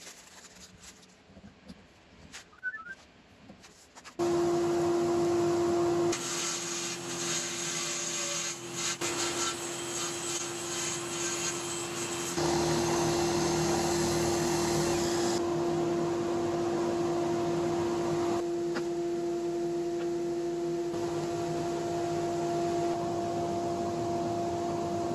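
Table saw and cordless drill running together as the drill spins a laminated wood blank against the saw blade, cutting it down into a round dowel, with dust extraction drawing off the chips. It starts suddenly about four seconds in, after quiet handling, as a loud steady hum with a dense rushing noise, and its level jumps abruptly a few times.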